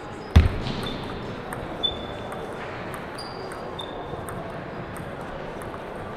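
Table tennis rally: the celluloid ball clicks sharply off paddles and table about every half second. A heavy thump comes about half a second in, just after the serve, and rubber-soled court shoes give short squeaks on the hardwood gym floor.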